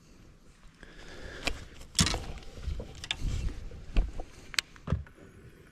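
Scattered sharp clicks and knocks of fishing gear being handled on a bass boat's deck while baits are being switched, over a low steady background of wind and water.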